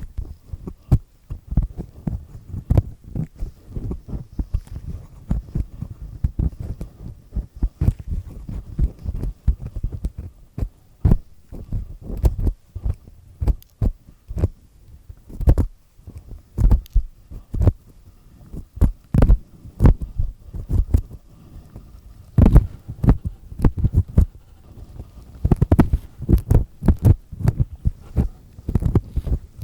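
Black triple-disc earpick scraping and scratching an ear right at the microphone: a dense, irregular run of crackly scrapes and dull low thumps, heavier and louder in the last third.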